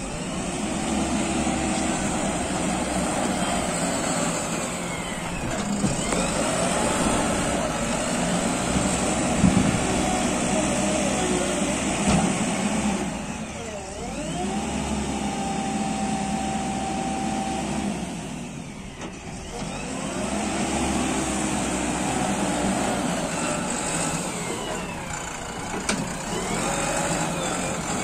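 JCB 3DX backhoe loader's diesel engine working under load, revving up and easing back over and over as the machine drives and levels soil. The engine eases off briefly twice, about halfway and about two-thirds of the way through, and a single sharp knock stands out about a third of the way in.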